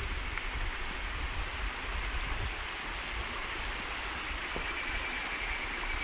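Steady rush of flowing water. From about two-thirds of the way in, a high, pulsing cicada buzz joins it.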